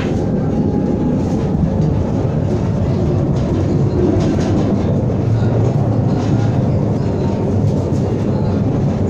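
Tram running along its rails, a steady rumble with some clattering from the wheels on the track.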